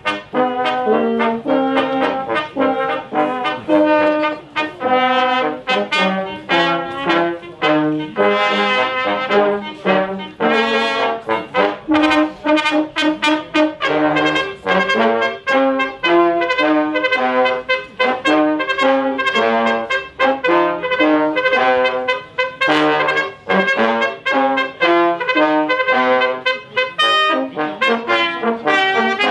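Brass band music, a tune of short, quickly changing notes played without a break.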